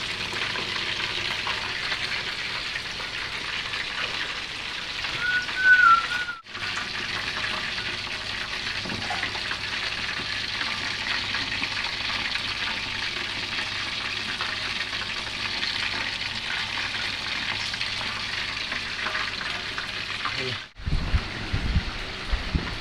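Food sizzling in hot oil in a pan, a steady frying hiss that drops out briefly twice. A short high whistle sounds about six seconds in, and a low rumble of wind on the microphone comes in the last two seconds.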